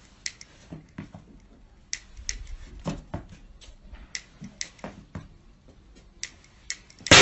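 A string of faint, sharp clicks at irregular intervals, roughly two or three a second.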